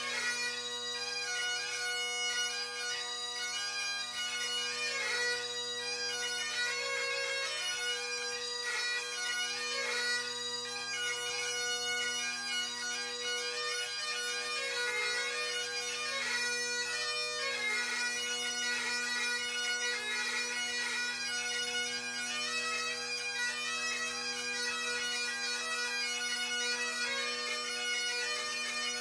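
Two Great Highland bagpipes playing a tune together, the chanter melody moving over the continuous, steady hum of the drones.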